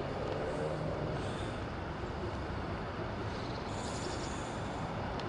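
Steady low rumble of distant traffic with outdoor urban background noise.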